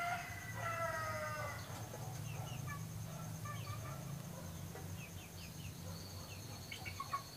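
Birds calling: a run of quick, falling pitched notes in the first second or so, then scattered short calls and a thin high whistle near the end, over a steady low hum.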